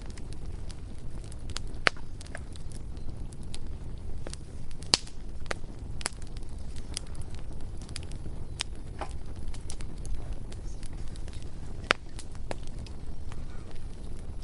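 Bonfire crackling: irregular sharp snaps and pops over a steady low rumble of burning, with the loudest pops about two, five and twelve seconds in.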